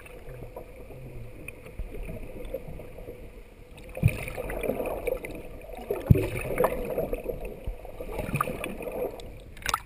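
Muffled underwater sound from a camera in its waterproof housing just below the sea surface: water sloshing and gurgling, with a faint steady hum and two dull knocks about four and six seconds in.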